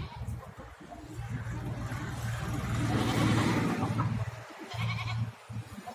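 Sirohi goats bleating in a herd, with a rushing noise that swells to its loudest about three seconds in and fades before a short bleat near the end.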